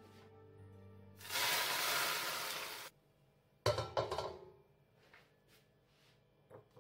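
Smoking-hot oil poured from a wok over chopped greens and red chili in a bowl, sizzling loudly for about a second and a half before it cuts off suddenly. About a second later come two sharp clanks as the wok is set back on the hob.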